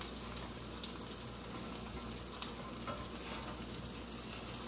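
Food frying in oil in a pan: a steady sizzle with faint scattered crackles.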